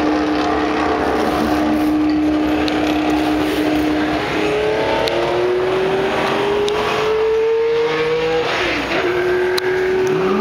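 Race car engines running at high revs out on the circuit: a sustained engine note that climbs in pitch in several steps from about four seconds in, then drops sharply shortly before the end.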